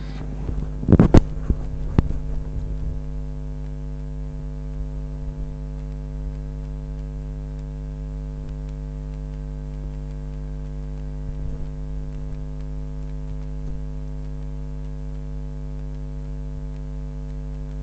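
Steady electrical mains hum throughout, with a cluster of sharp, sudden sounds about one to two seconds in.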